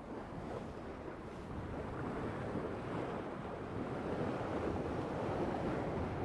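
Sea water rushing and splashing along the hull of a sailing yacht under sail through choppy waves, with wind buffeting the microphone. It grows louder about two seconds in.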